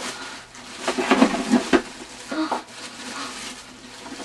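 Rustling and crinkling of a plastic bag and clothing as two people scuffle on a floor, in irregular bursts, strongest about a second in.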